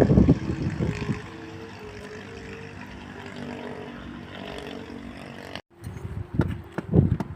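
The hummer bow (snu) of a Thai Isan kite droning in strong wind: a few steady tones that step up and down in pitch. Wind gusts buffet the microphone near the start and again near the end, and the sound cuts out for an instant after about five and a half seconds.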